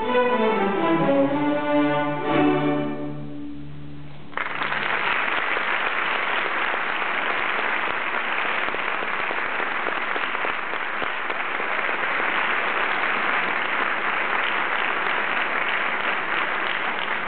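A string orchestra plays the closing notes of a march, ending on a low held note that fades out. About four seconds in, audience applause breaks out suddenly and goes on steadily.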